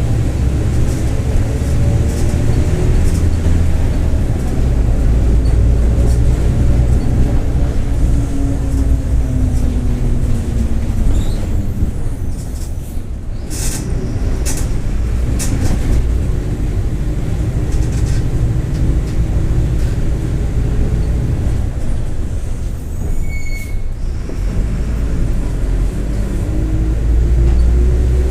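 Mercedes-Benz OF-1721 BlueTec 5 bus under way: the diesel engine hums low while a growling differential whine rises and falls in pitch with road speed. A few knocks and rattles come about halfway, and a brief high squeal a few seconds before the end.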